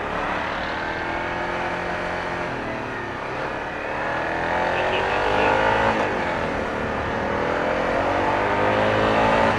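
Motorcycle engine accelerating through the gears, its pitch climbing, dipping at a shift about three seconds in and again at about six seconds, then climbing again.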